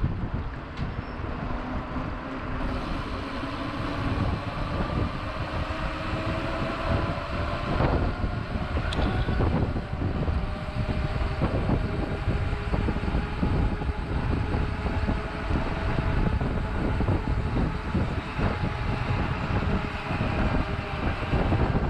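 Mountain bike ridden over rough, stony ground, heard from a bike- or rider-mounted action camera: the steady noise of tyres and rattling bike, with faint whining tones that slowly rise in pitch and a few sharp knocks about eight to ten seconds in.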